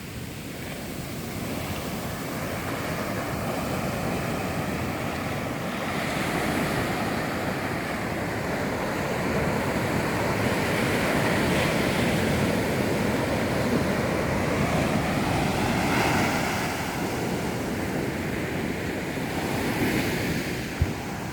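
Sea surf washing onto a beach: a continuous rushing that swells and eases as waves come in, with one brief knock just before the end.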